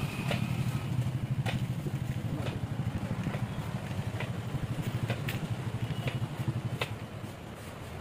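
A low, steady engine rumble with a fast, even pulse, with scattered light clicks over it.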